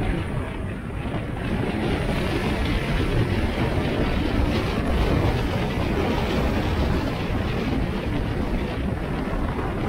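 Steady, deep rumble of road and wind noise from a moving car.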